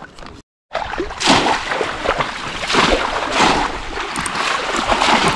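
Shallow water splashing as bamboo cone fish traps (polo) are plunged down into it again and again, about two splashes a second, after a brief silent gap near the start.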